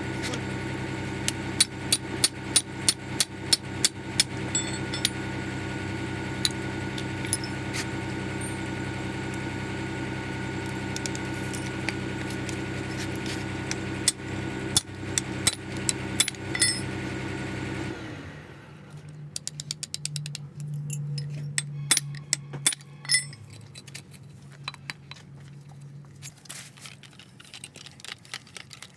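An engine running steadily with many sharp metallic taps and clinks over it. The engine sound stops about two-thirds of the way through, and scattered metal clinks go on after it.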